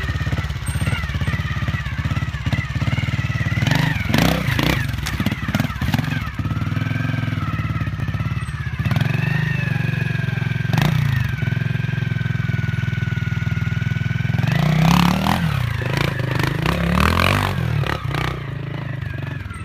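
Honda RTL trials motorcycle's four-stroke single-cylinder engine running at low revs, with sharp bursts of throttle about four seconds in and again around fifteen to eighteen seconds as the bike is hopped over obstacles and climbs a dirt bank. Some knocks are mixed in.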